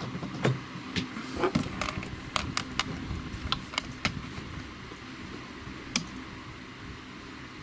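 Seaward Europa Plus PAT tester powering up, its relays giving a run of irregular sharp clicks, most of them in the first half: its normal startup clicking.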